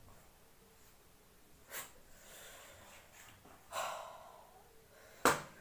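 A man breathing heavily through the mouth, three breaths in all: a short one about two seconds in, a longer sighing breath out near the middle, and a sharp, loudest breath near the end.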